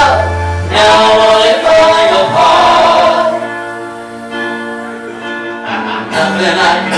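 Two voices singing a power ballad into microphones over backing music, amplified through club speakers. Loud held notes give way to a quieter stretch midway, then the singing swells again near the end.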